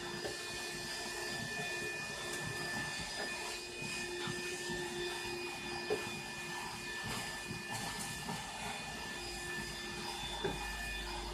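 Bissell Bolt cordless stick vacuum running steadily with its crevice tool, a constant motor whine over a rushing hiss, with a few light knocks.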